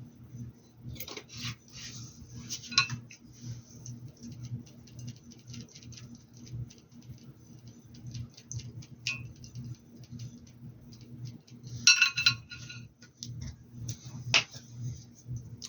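Painting tools tapping and clinking against glassware: a run of light ticks, a cluster of ringing clinks about twelve seconds in and one sharp clink soon after, over a steady low hum.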